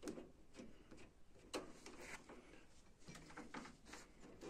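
Near silence with a few faint clicks and rustles of hands handling things close to the microphone.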